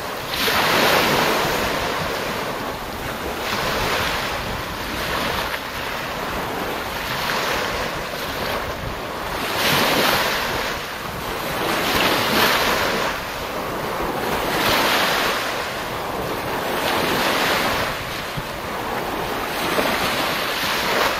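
Small waves breaking and washing up the beach, a rush of surf swelling and fading every two seconds or so. Wind rumbles on the microphone throughout.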